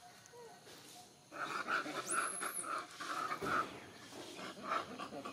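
Long-tailed macaques squabbling: a quick run of harsh, rapidly repeated calls starting about a second in, with a brief high squeal in the middle, and a few more calls near the end.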